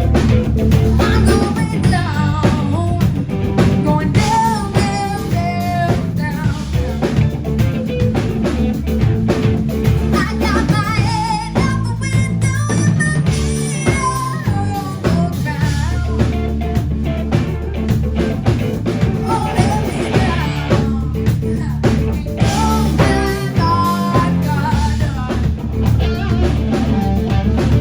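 Live blues-rock band playing loudly: electric guitar over bass and a drum kit.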